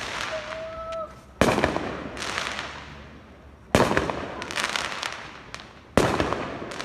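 Fireworks going off: three sharp bangs a little over two seconds apart, each followed by crackling that fades away.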